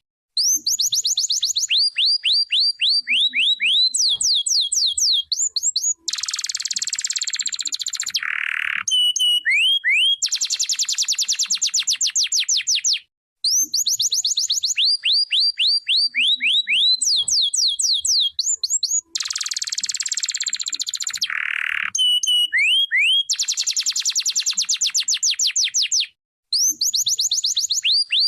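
Domestic canary singing: fast trains of rising whistled notes mixed with buzzy rolls, the same song sequence repeating about every thirteen seconds.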